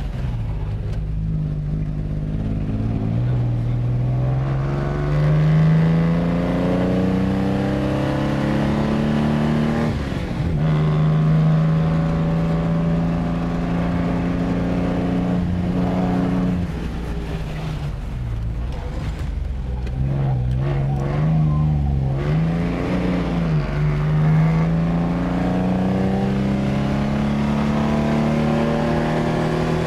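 1953 Lancia Aurelia B20GT's V6 engine heard from inside the cabin, pulling hard uphill: the revs climb, drop at gear changes about ten and sixteen seconds in, waver briefly, then climb again near the end.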